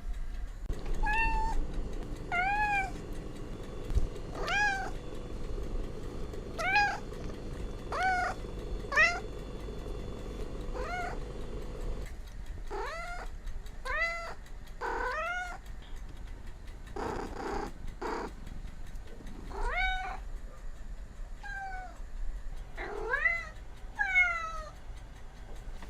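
A cat meowing over and over, short high-pitched calls coming about every second or two.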